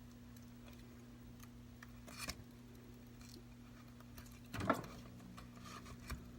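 Faint light clicks and taps of an iPad screen and its parts being handled and pressed into place in a dry fit, the loudest about two thirds of the way through, over a steady low hum.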